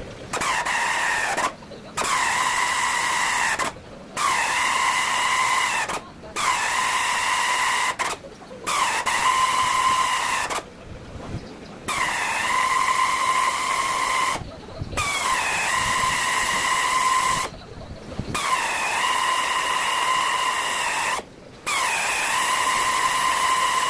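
A high-speed pneumatic air tool run in about nine short bursts with brief pauses between them, each a steady high whine with a hiss of air, dipping in pitch as it takes hold and then holding level.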